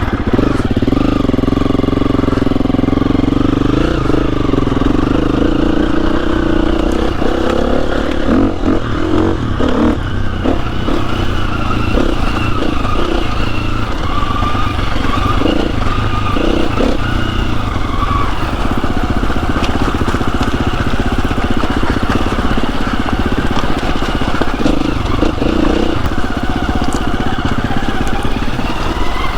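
Trail motorcycle engine running with the throttle rising and falling as the bike is ridden over a rough lane, with scattered short knocks and clatter from the ride.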